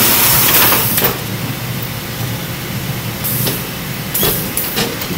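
Packing-line machinery running steadily: a Sims case sealer and its roller conveyor, under a constant mechanical din. A burst of hiss comes at the start and another about three seconds in.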